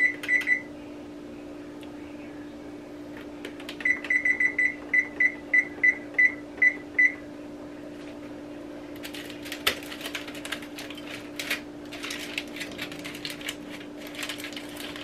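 Frigidaire electric range's control panel beeping as its keypad is pressed to set a 2-hour timer: a few quick beeps at the start, then a run of about a dozen beeps between four and seven seconds in. After that come scattered clatter and clicks as the foil-wrapped springform pan is moved on the stovetop, over a steady low hum.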